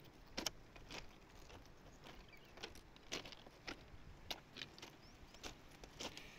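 Faint footsteps on the crushed-stone ballast of a railway track, about two steps a second.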